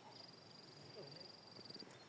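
A small creature's high, rapid trill, held at one pitch for nearly two seconds against faint outdoor background.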